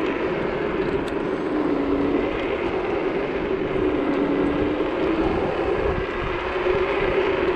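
Wind buffeting the body-worn microphone and road rumble from a Zero 10X electric scooter riding along, with a steady low hum underneath that shifts pitch slightly now and then.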